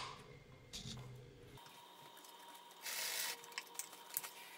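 Faint rustle of stiff surgical-wrap fabric being handled for about half a second, followed by a few small clicks near the end.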